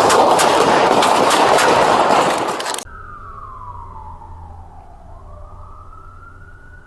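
A loud, harsh burst of noise crowded with sharp cracks, continuing the gunfire on the bodycam, cuts off suddenly almost three seconds in. A siren then wails, one slow fall in pitch and a slow rise back, over a low hum.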